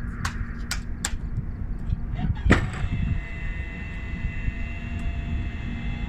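Gulfstream 450 airstair door closing: three sharp clicks in the first second and a loud clunk about two and a half seconds in as the stairs fold, then a steady whine of the door drive as the door rises. A steady low hum runs underneath.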